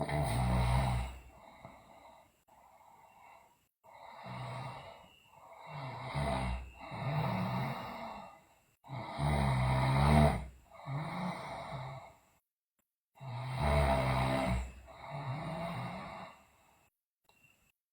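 A sleeping woman snoring loudly, with sighing breaths: about ten deep, rasping breaths in quick succession, each lasting a second or so. A few sudden silent gaps break the run.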